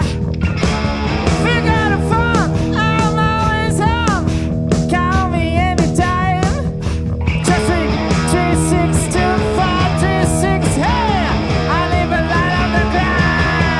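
Live hard-rock band playing: a lead electric guitar solos with string bends and vibrato over rhythm guitar, bass and drums, ending on a long held note.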